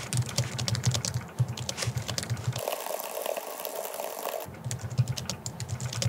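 Fast touch-typing on a computer keyboard during a timed typing test: a rapid, continuous stream of key clicks. For about two seconds in the middle the clicking sounds thinner and hissier.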